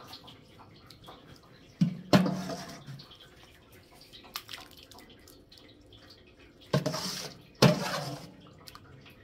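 Liquid draining from a large batch of mashed boiled sweet potatoes, dripping faintly, with two pairs of sudden heavy splashes, about two seconds and seven seconds in, each fading out over about a second.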